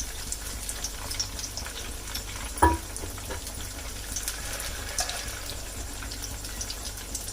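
Breaded potato cheese balls deep-frying in hot oil: a steady sizzle with scattered small crackles. There is one sharp knock, like a utensil against the pan, about two and a half seconds in.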